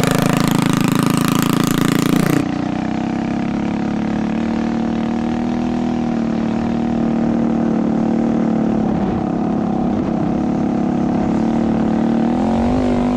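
Tuned Tillotson 212 single-cylinder engine on a Coleman CT200U-EX mini bike running hard with an open exhaust, loud. It is heard first from behind the riding bike, then about two seconds in from on board at a steady high speed, its pitch rising a little near the end.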